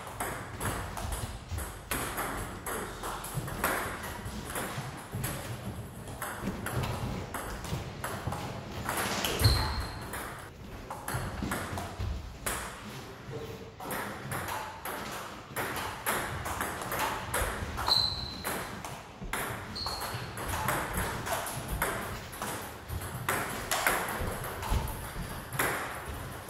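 Table tennis balls clicking off paddles and tables in rallies, with gaps between points. A few short high squeaks come in now and then.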